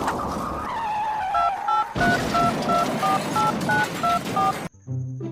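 Telephone keypad touch-tones: about ten short dual-tone dialing beeps, roughly three a second, over background noise, cutting off abruptly near the end.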